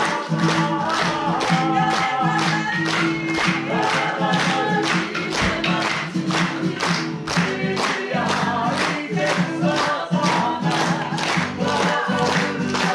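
Māori performing group singing a song together in unison, over a steady beat of sharp taps about three times a second.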